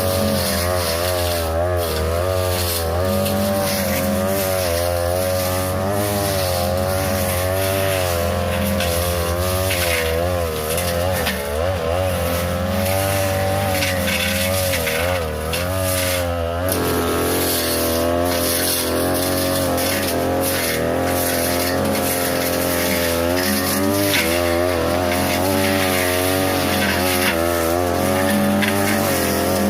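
42cc two-stroke brush cutter with a blade, running at high revs while cutting tall grass and brush; its pitch keeps wavering up and down as the blade takes load, with frequent short sharp cracks from the blade striking stems.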